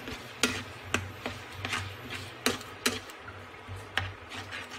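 Spatula tapping and scraping against a nonstick frying pan as a sauce is stirred: about six sharp clicks at irregular intervals, with a low steady hum underneath.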